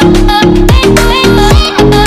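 Upbeat background music with a steady, driving beat and held bass notes.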